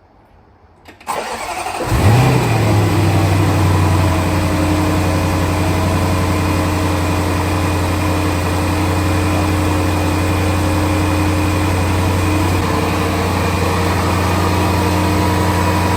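A Range Rover Sport's 5.0-litre supercharged V8 is cranked and catches about a second in. It flares up briefly, then settles into a steady idle that steps down slightly in pitch near the end.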